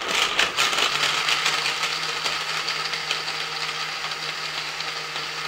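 Countertop blender running, blending frozen banana chunks with almond milk into a smoothie. It is uneven for about the first second, then settles into a steady whir.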